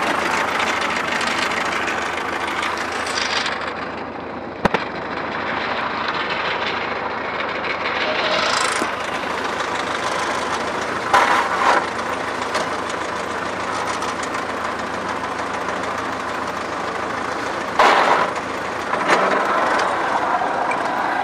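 An engine idling steadily, with a single sharp click about five seconds in.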